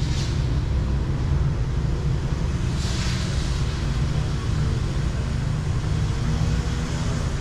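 Outdoor street ambience: a steady low rumble of distant traffic, with two brief hissing swells, one right at the start and one about three seconds in.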